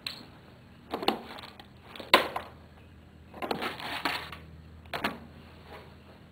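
Scattered knocks, scuffs and rustling from someone moving and handling things in a small room, about one a second, the sharpest knock about two seconds in and a longer rustle a little later.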